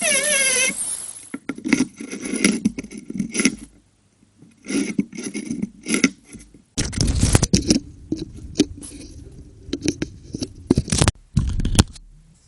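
A whining, wavering pitched sound fades out in the first second. Then come repeated clinks, rattles and scrapes of hard objects, in irregular bursts, with the loudest clatters about seven seconds in and near the end.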